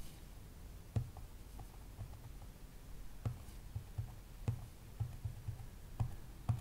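Faint, irregular clicks of the buttons on a SigPeak DSO1511E+ handheld oscilloscope being pressed, about five clearer presses with softer ticks in between, as the built-in signal generator's frequency is set.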